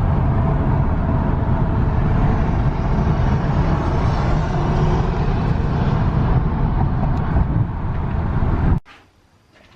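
Steady road and engine noise from a moving vehicle, heard from inside while driving, cutting off suddenly near the end.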